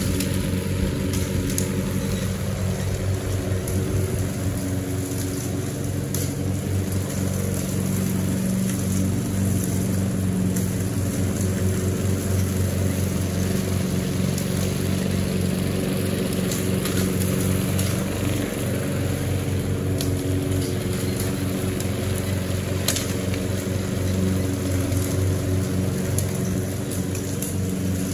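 Walk-behind gasoline lawn mower's small engine running at a steady speed while cutting grass.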